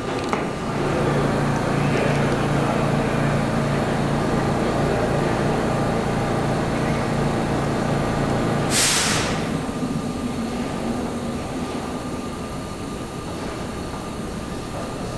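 Budd R32 subway cars standing in a station, their onboard equipment giving a steady low hum. About nine seconds in comes a short, sharp hiss of air from the brakes, after which the hum carries on quieter.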